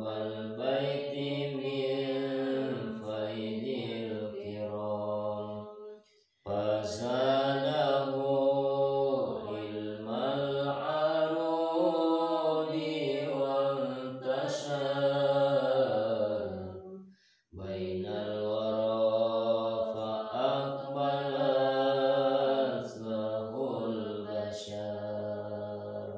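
A man's voice chanting Arabic text melodically, drawn out in three long sung phrases with short breaks about six and seventeen seconds in.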